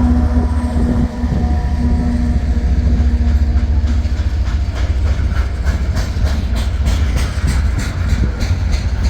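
A train passing, with a loud, steady low rumble. From about halfway in, the wheels click rhythmically over the rail joints, several clicks a second.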